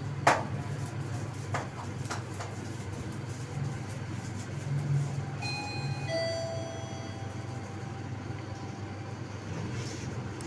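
Sigma Di1 traction elevator car travelling down with a steady low hum, a sharp click just after the start. About five and a half seconds in, as the car reaches the basement, the two-note arrival chime sounds, a short higher note and then a lower ringing note that fades; near the end the car doors start to slide open.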